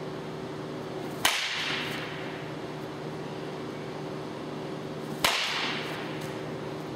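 Two sharp cracks of a bat hitting pitched baseballs, about four seconds apart, each ringing out briefly in the cage.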